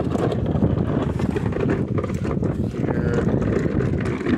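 Wind buffeting the microphone: a steady, loud, low rumble, with scattered light knocks.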